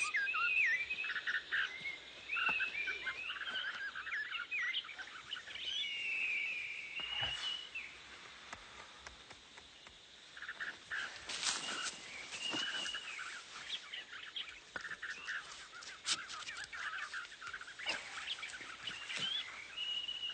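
Birds chirping and calling in a continuous wild-ambience bed, many short rising and falling chirps and whistles overlapping. A few short sharp noises break in, about seven, eleven and sixteen seconds in.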